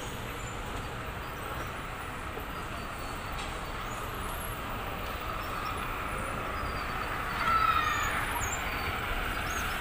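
Steady, low rumbling background noise of a large department store, with a brief louder sound about three-quarters of the way through.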